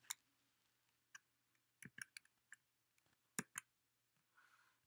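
Faint scattered clicks from operating a laptop, about eight in the first three and a half seconds, some in quick pairs, followed by a soft brief rustle near the end.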